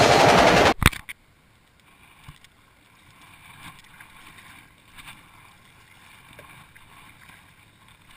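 Music cuts off abruptly about a second in, followed by the soft, faint splashes of a kayak paddle dipping into the water on alternate strokes, roughly every second and a half.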